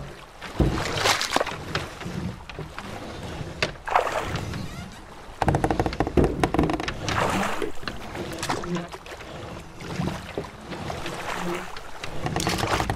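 Rowing: wooden oars splashing and pulling through water in repeated strokes every two to three seconds, with wood creaking.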